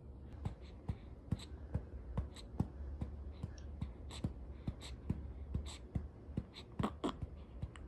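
A hand patting a newborn's back to bring up a burp, a steady run of short pats about two to three a second, over a low steady hum.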